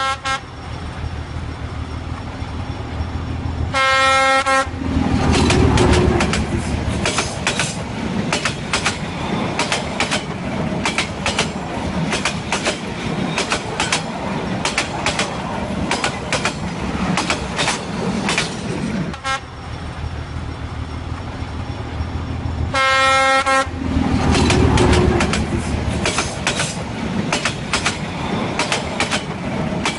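Freight train of covered hopper cars and boxcars rolling past close by, its wheels rumbling and clicking rapidly and steadily over the rails. A train horn sounds a short blast about four seconds in and again about twenty-three seconds in.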